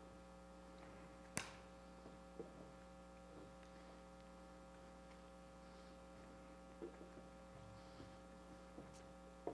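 Near silence: a steady electrical hum from the sound system, with a few faint knocks.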